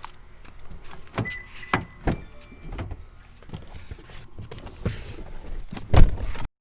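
A string of scattered knocks and clicks of things being handled, with one heavier thump about six seconds in. The sound cuts off sharply just before the end.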